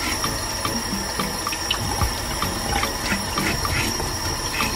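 Kitchen tap running into a stainless steel sink: a steady splashing stream, with light scattered clicks and scrapes from a knife peeling green bananas under the water.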